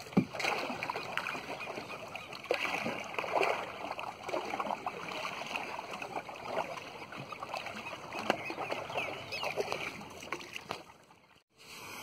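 Oars dipping and splashing as a wooden rowboat is rowed, with irregular splashes and water noise throughout. The sound drops out briefly near the end.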